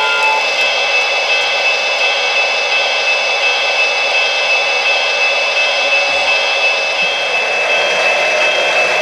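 Steady turbine whine and hiss from the sound system of a Lionel O-gauge PRR S2 steam-turbine locomotive. A held multi-note tone cuts off just after the start.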